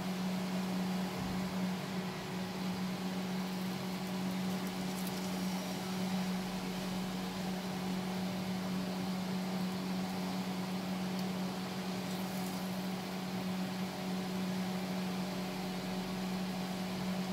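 Steady low mechanical hum, like a fan or motor running, with an even faint hiss throughout.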